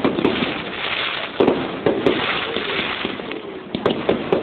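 Fireworks display: a continuous crackling hiss of burning stars, with a string of sharp bangs from shells bursting, several in quick succession.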